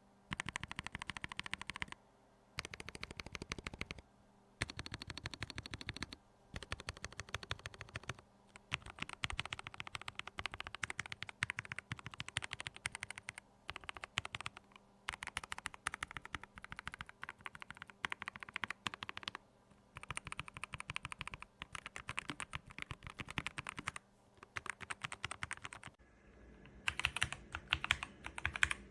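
Typing on a mechanical number pad with Gateron Red linear switches and PBT keycaps: quick runs of key clacks, each a second or two long, with short pauses between them.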